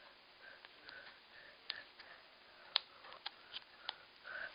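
Small hard-plastic clicks and taps as the pieces of a plastic Servine toy figure are handled and pushed together, about half a dozen in all, the sharpest about two-thirds of the way through, with soft sniffs in between.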